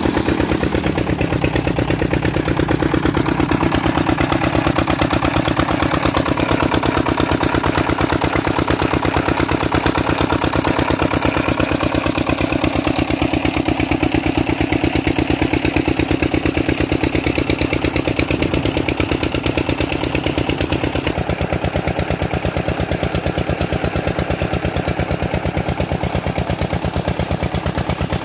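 Tubewell diesel engine running steadily, its exhaust beating fast and even like rapid knocks. The tone shifts slightly about three-quarters of the way through.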